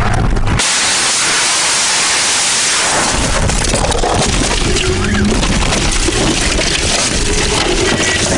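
Car crash heard through a dashcam's microphone: a sudden loud rushing noise starts about half a second in as the car leaves the road, then carries on as a heavy rumbling din while the car tumbles down the grassy embankment.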